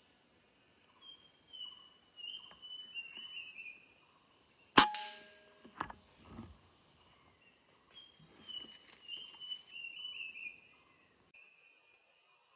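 A scoped hunting gun fires once about five seconds in, a sharp crack with a brief metallic ring. A small bird sings a quick run of falling notes twice, before and after the shot, over a steady high insect drone.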